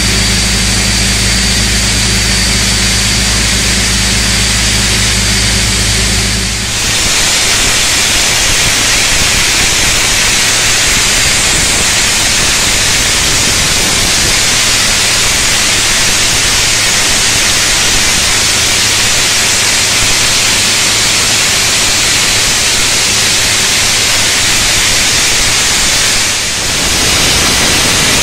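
Loud, steady industrial hiss. For the first seven seconds a machine hum with several steady low tones runs under it; after that the hiss alone dominates.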